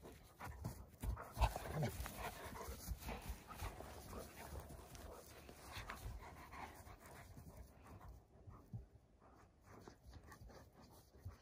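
Two young Central Asian Shepherd (Alabai) dogs play-wrestling, panting and scuffling on pine needles, with many small knocks. The noise is loudest in the first couple of seconds and dies down near the end.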